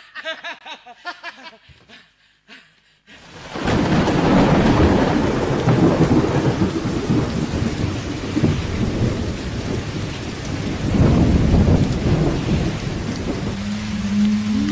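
Thunderstorm sound effect for the play: heavy rain with rolling thunder, cutting in suddenly about three seconds in and staying loud. Near the end a steady low musical note comes in under it.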